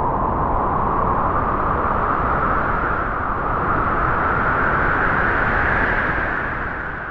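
Wind blowing steadily, its pitch rising slowly through the gust, then easing off and fading near the end.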